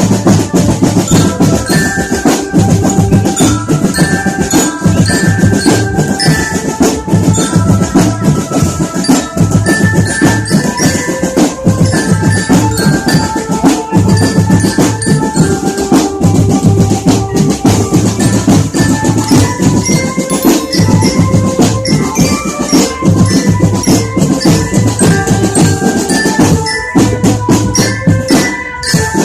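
Marching drum band playing: snare and bass drums beating a steady, dense rhythm under a melody of short bright notes on marching glockenspiel (bell lyra). The band eases briefly near the end, then plays on.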